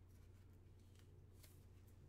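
Near silence: a low steady electrical hum, with a faint brief rustle of a trading card and plastic sleeve being handled about one and a half seconds in.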